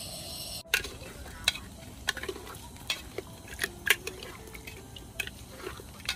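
A metal spoon stirring and scooping food in an aluminium pot, with about ten sharp, irregular clinks and scrapes of metal on metal. A short steady hiss comes before the first clink.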